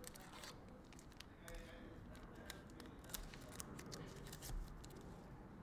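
Faint, scattered light clicks and rustles of trading cards being handled.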